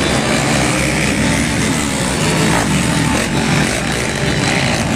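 Several motocross bikes racing around a dirt track, their engines revving and blending into a steady, dense drone.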